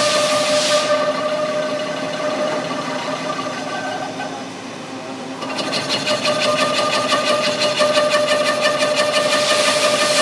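CNC lathe machining a cast iron pipe fitting: a steady whine with a fast, even rattle. It eases off about four to five seconds in and picks back up, with a burst of hiss near the end.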